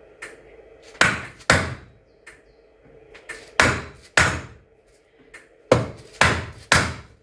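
Small mallet striking aluminium frame tubes to seat them in their connectors: about seven sharp knocks in uneven groups of two or three, with a few lighter taps between them.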